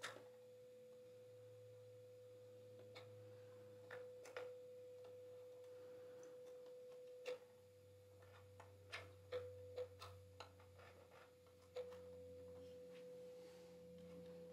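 Steady, faint mid-pitched sine-wave test tone played through a NAD 3020i amplifier into small speakers, with a hiss on it that should not be there. Light clicks come at irregular moments as cables at the back of the amplifier are handled.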